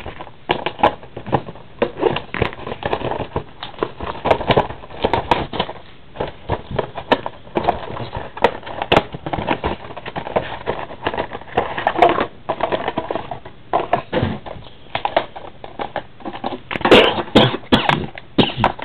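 Trading-card packs and their plastic packaging handled at close range: irregular crinkling, crackling and clicking, busiest near the end.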